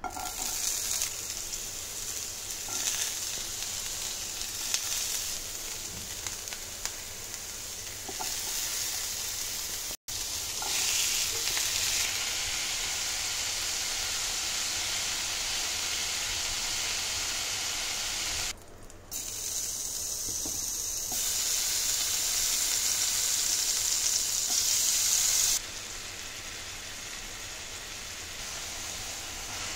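Chopped onion and then mixed vegetables sizzling in hot oil in a nonstick frying pan, a steady hiss that cuts off briefly a couple of times and restarts, louder for a few seconds past the middle.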